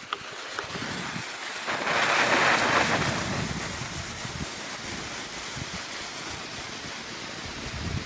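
Lesli Joystick handheld firework fountain hissing as it sprays sparks. The hiss swells about two seconds in, is loudest for about a second, then settles to a steady, lower hiss.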